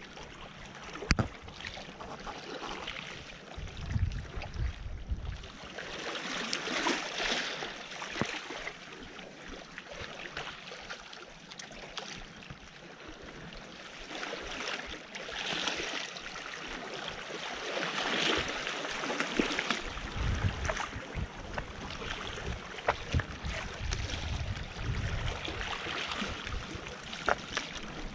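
Small waves washing and splashing against shore rocks, swelling every few seconds, with gusts of wind buffeting the microphone about four seconds in and again over the last third.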